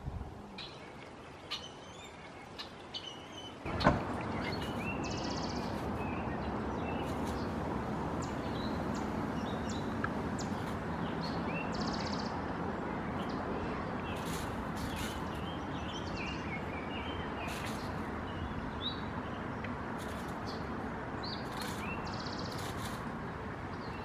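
Small songbirds chirping and calling, with short high notes scattered throughout. A sudden knock comes about four seconds in, after which a steady rushing background noise sets in under the calls.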